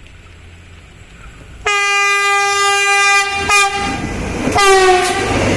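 Kelud inspection train sounding its horn as it passes: one long blast, then a shorter second blast that drops in pitch as the train goes by, followed by the noise of the train running past.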